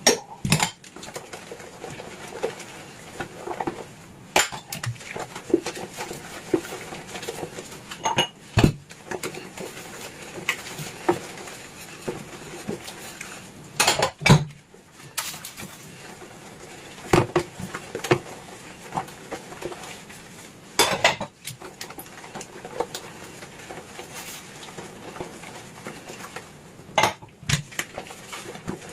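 Dishes and cutlery clinking and knocking against each other as they are washed by hand, in irregular scattered knocks, the loudest about halfway through.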